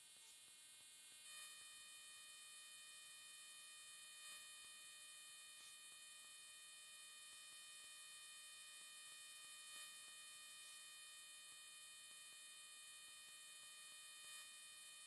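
Near silence: a faint, steady high-pitched whine with hiss, and a few faint soft clicks.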